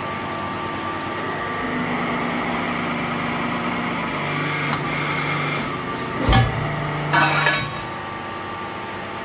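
Hydraulic press brake running with a steady machine hum while bending a steel plate, the hum's note shifting a couple of times as it works. About six seconds in comes a heavy thump, then a brief metallic clatter.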